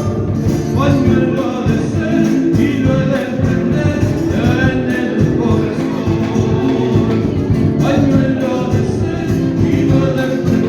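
Latin American folk music with singing, steady and loud throughout.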